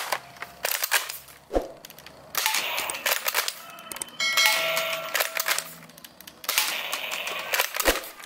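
Red toy M16-style blaster firing at small targets on a table: several stretches of rapid clicking shots and clattering hits, with a few single sharp knocks between.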